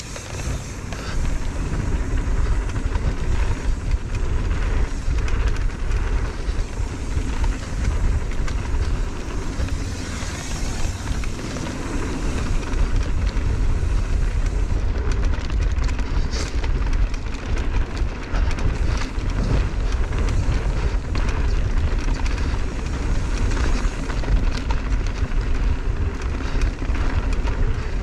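Mountain bike descending a dirt trail: a steady low rumble of wind buffeting the GoPro microphone and tyres rolling over dirt, with scattered clicks and rattles from the bike.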